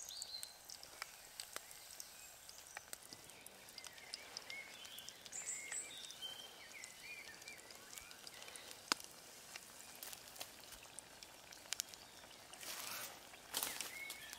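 Battered dandelion flowers deep-frying in hot oil: a faint, steady sizzle with frequent small pops and crackles, swelling louder near the end.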